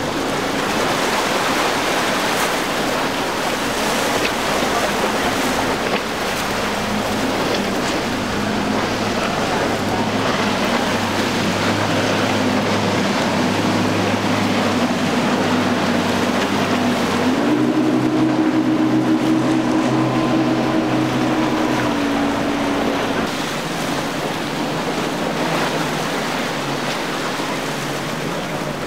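Outboard motors of centre-console boats running at speed past, over the hiss of hull wash and waves. The engine drone steps up in pitch a little past halfway and fades about five seconds later.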